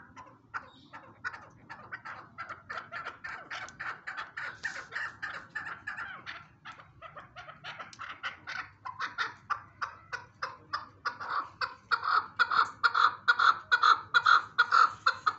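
Male chukar partridge calling: a long, rapid run of clucking 'chuk' notes, about four a second, getting louder over the last few seconds.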